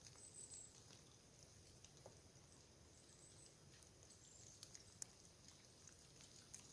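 Near silence: faint outdoor quiet with scattered soft ticks and, about half a second in and again around three seconds, a faint high chirp.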